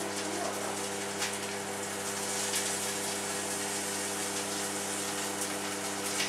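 Microwave oven running: a steady electrical hum over an even fan hiss, with a couple of faint ticks.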